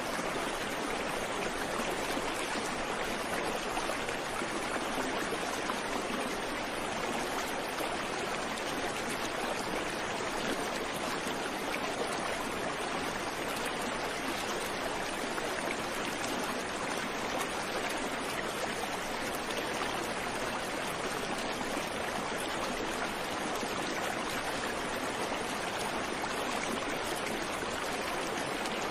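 River water rushing steadily, an even, unbroken sound of running water.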